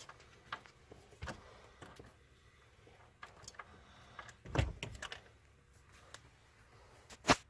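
Scattered clicks and knocks of hand tools and metal parts as a car's gear shifter assembly is worked loose, with a cluster of knocks midway and a sharp click near the end.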